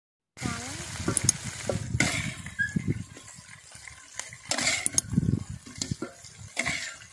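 Metal spatula scraping and clinking against an aluminium wok as pieces of fried chicken are pushed and lifted out, over a light sizzle of hot oil. It begins after a brief silent gap, with several sharp clicks of metal on metal.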